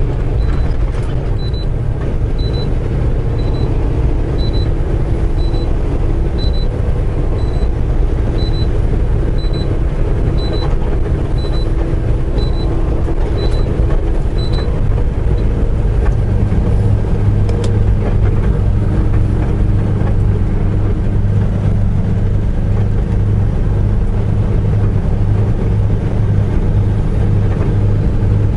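Semi-truck cab at highway speed: a steady engine and road drone, with a short high beep about once a second for roughly the first half. The beeping is a warning the driver wants to be rid of, tied to the truck's following-distance control. The beeps stop about halfway through and the engine hum changes to a steadier, deeper note.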